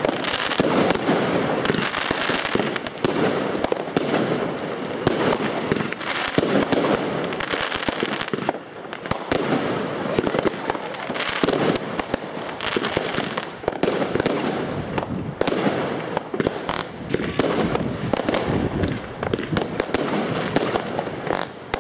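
Aerial fireworks going off in a dense, unbroken barrage: many rapid bangs and crackles overlapping, with no pause.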